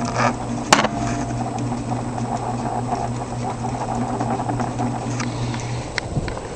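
Kingston ceiling fan running on high speed: a steady electric-motor hum with the rush of the spinning blades. Near the end there is a click and the motor hum drops out.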